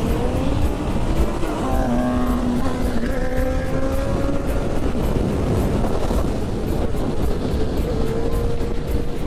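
Motorcycle engine running under way, with wind rush on the rider's camera, over background music.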